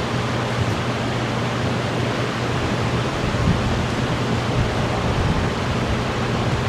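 Steady hiss with a constant low hum underneath.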